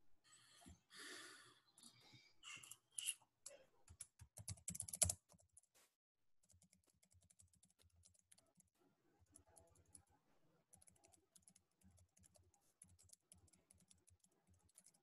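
Faint typing and clicking on a computer keyboard. Louder rustling and clicks in the first five seconds, then a steady run of light, rapid key taps.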